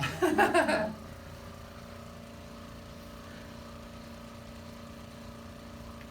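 A man's voice finishing a sentence, then a steady machine-like hum with a few constant tones.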